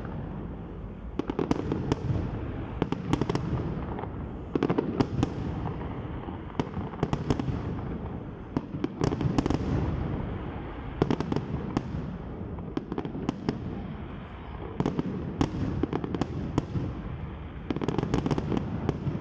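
Aerial fireworks display: clusters of shell bursts and crackling cracks in rapid volleys, a new volley every second or two.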